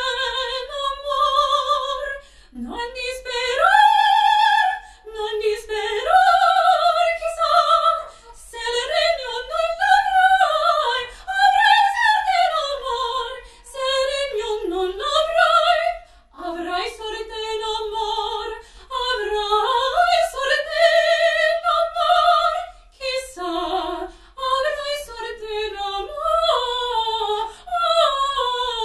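A female opera singer, a soprano, sings high sustained notes with wide vibrato. She sings in phrases broken by short pauses for breath.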